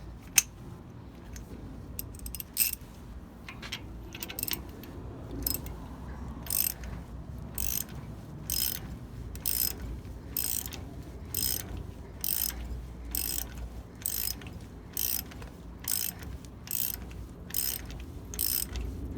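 Ratchet wrench turning the forcing screw of a ball joint press to push an old bushing out of a leaf spring eye: short bursts of rapid pawl clicks, about one stroke a second, with a single sharp click near the start.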